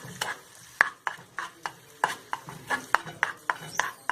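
A spatula stirring onions and sauce in a frying pan, with irregular clicks and scrapes against the pan, about three or four a second.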